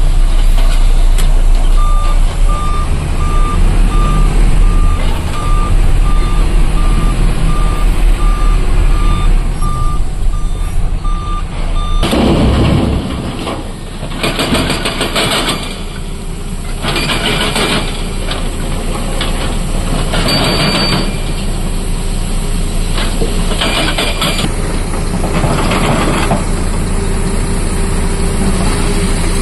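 Heavy truck's diesel engine running with a reversing beeper sounding steadily. About twelve seconds in it gives way to an excavator's hydraulic rock breaker hammering rock in bursts of about a second each, over the machine's engine.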